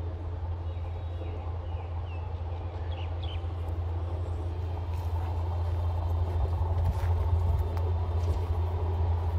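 Diesel engine of a yellow track-maintenance rail car (gang car) running as it slowly approaches: a steady low drone that grows a little louder about five seconds in.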